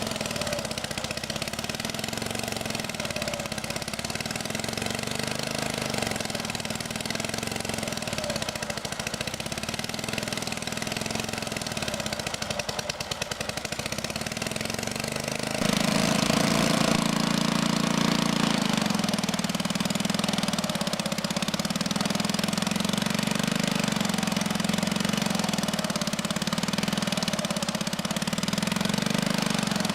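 Sawmill engine running steadily, then growing louder and fuller about halfway in and holding at that higher level.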